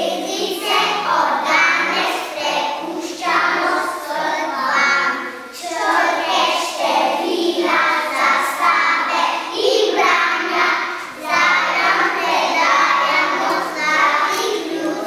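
A group of young children singing a song together in Slovenian, in phrases with short breaks between them, over a steady accompaniment.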